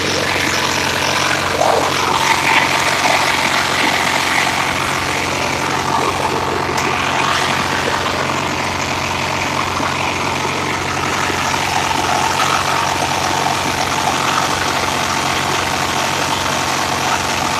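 Craftsman 19.5-horsepower lawn tractor engine running steadily as the tractor drives over grass.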